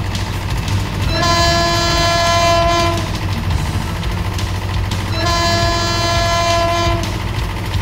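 Train horn sounding two blasts of nearly two seconds each, about four seconds apart, over the steady low rumble of a running train.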